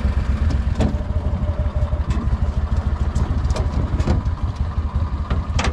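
Outboard motor running steadily at low speed, pushing the jon boat along, with a few light knocks from the boat.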